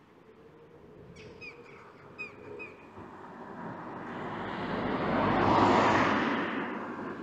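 A car passing on the road, its engine and tyre noise building to a peak about five to six seconds in and then fading away. A bird gives a few short, quick chirps between one and three seconds in.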